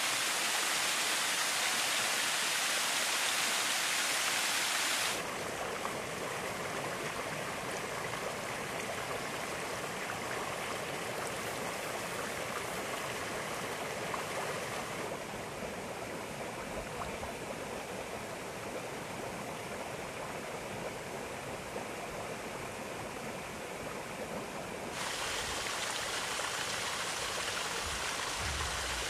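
Water of a volcanic hot-spring stream splashing over rocks in a small cascade. About five seconds in it gives way to quieter running and bubbling water from thermal springs and a muddy pool. The sound changes sharply again near fifteen and twenty-five seconds in, with a few low plops near the end.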